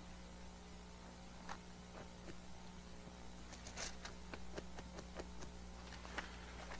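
Faint, scattered soft clicks and rustles of Bible pages being leafed through, over a steady low electrical hum.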